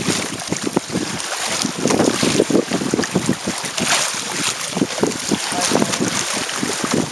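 Water rushing and splashing between the hull and outrigger float of a Hobie Tandem Island sailing trimaran under way, in irregular surges, with wind buffeting the microphone.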